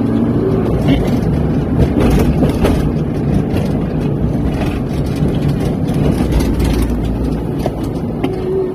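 Car driving, heard inside the cabin: a steady low rumble of engine and tyres on the road, with a few light knocks from bumps.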